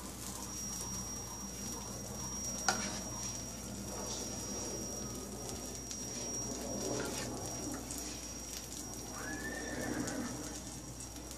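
Pancake batter pouring onto a hot electric griddle, with a faint steady sizzle under a low hum and a thin high whine. A sharp click comes about three seconds in, and a brief tone rises and falls near the end.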